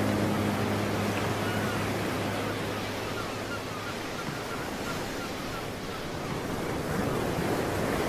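Ocean waves: a steady rush of surf that dips slightly and swells again near the end. A low held musical note fades out in the first second.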